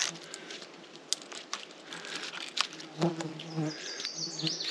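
Flying insects buzzing, a steady low drone that swells and fades, with scattered clicks and knocks. A quick run of high chirps comes near the end.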